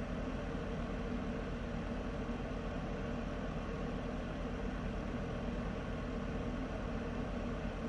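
Heater running steadily: an even rushing noise with a low hum underneath.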